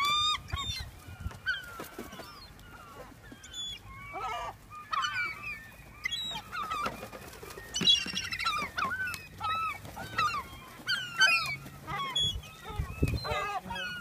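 A flock of gulls calling, many short overlapping squawks coming one after another throughout, thickest in the second half.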